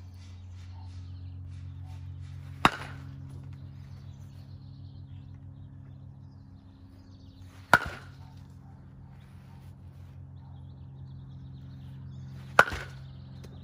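Baseball bat hitting a ball three times, about five seconds apart, each a sharp crack with a brief ring. A steady low hum runs underneath.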